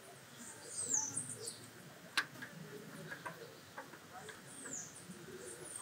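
Faint clicks of metal engine parts being handled by a gloved hand, with one sharper click about two seconds in. A few short high chirps fall in pitch, bird-like.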